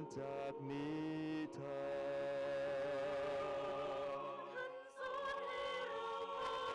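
Mixed choir singing a slow song in harmony, holding long chords. There is a brief break about five seconds in before the next chord begins.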